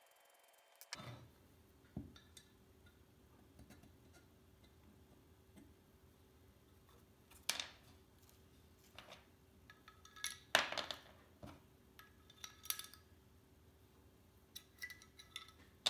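Scattered small metallic clicks and clinks of Steyr AUG receiver parts being handled and test-fitted, with a few sharper clinks in the second half.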